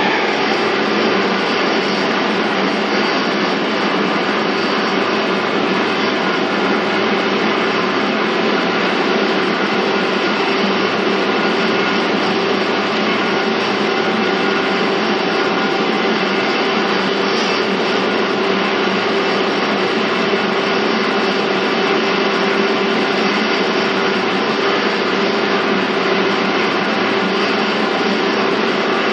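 Steady noise inside a 485 series electric train car (MoHa 484-206), with a constant hum under an even rushing noise. It holds unchanged throughout, with no rail-joint clicks or changes in speed.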